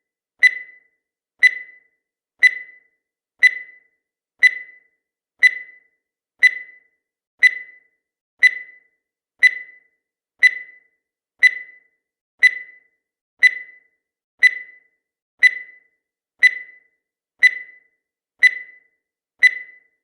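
Countdown timer sound effect: a short high blip once every second, each dying away quickly, in a steady even rhythm.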